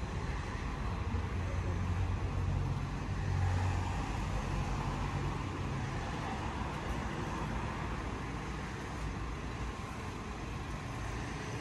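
Steady road traffic noise with a low engine hum, growing a little louder about three seconds in.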